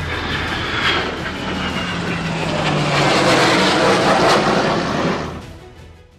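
Airplane flying past: loud engine noise that swells, with a faint falling whine, then fades away near the end.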